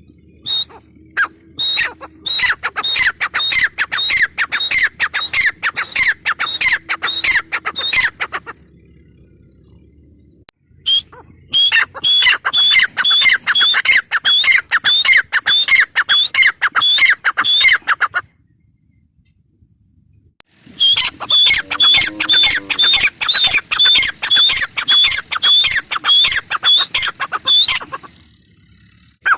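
Gray francolin (teetar) calling: three long bouts of rapid, evenly repeated sharp notes, about four a second, each note dropping in pitch, with short pauses between the bouts.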